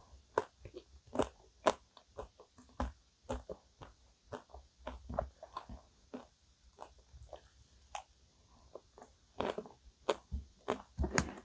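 Close-miked chewing and biting of vanilla ice cream cake with a chocolate top: irregular sharp crunches and wet mouth clicks, a few every second, busier near the end.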